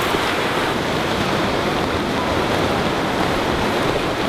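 Ocean surf: waves breaking and washing up the shore, a steady rush.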